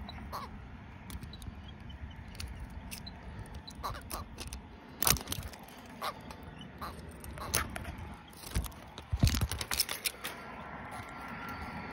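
Scattered clicks and knocks from a caught catfish moving against a wire-mesh basket, the loudest about five seconds in and a quick cluster around nine seconds, over a low rumble.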